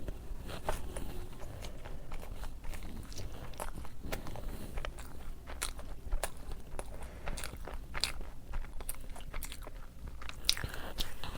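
A person eating rice and fish up close, chewing with frequent small crunches and clicks at an irregular pace.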